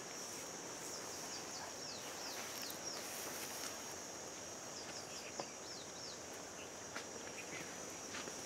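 Quiet scrub-jungle ambience: a steady, high-pitched insect drone, with two runs of short, quick downward-sliding chirps.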